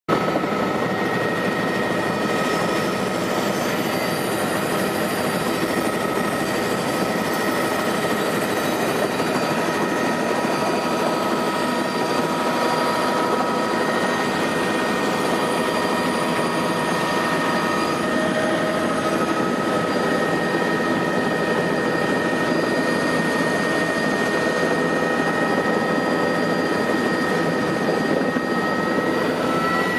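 Tour helicopter's turbine engine and rotor running steadily, heard from inside the cabin, with a steady high whine over the rotor noise as it sets down and sits on the pad.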